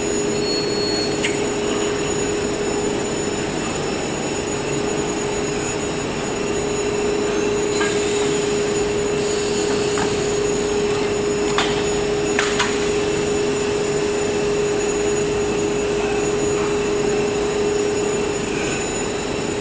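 Stretch film winding machine running, a steady mechanical drone with one constant tone. A few sharp clicks and knocks come midway, along with a brief hiss.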